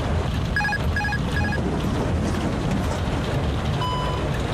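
Airbus A330 cockpit alert beeping: three short double beeps about half a second apart, then a single tone near the end, over a steady low rumble of cockpit and airflow noise. The alert marks the autopilot disconnecting.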